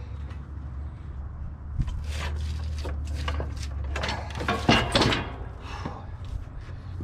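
Clunks, knocks and scrapes as a SnowEx snow plow's steel push frame and blade are shifted by hand on a wooden pallet. The knocks come irregularly, with two louder, sharper ones about two thirds of the way through.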